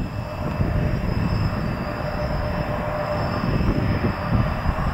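General Electric CF34 turbofan engines of an Embraer ERJ-175 jet running as the aircraft passes close by: a steady deep rumble with a thin, high, steady whine over it.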